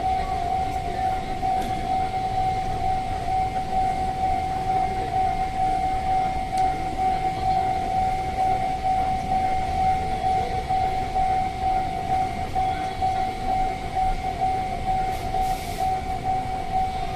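Japanese level crossing warning bell ringing steadily in a fast, even repeat of one high tone. A low rumble from the freight train crossing runs underneath.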